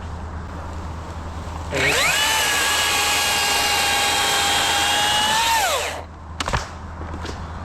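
Chainsaw run up to full speed for about four seconds of cutting, its whine rising at the start, holding steady, then falling away as the throttle is released. A couple of short knocks follow.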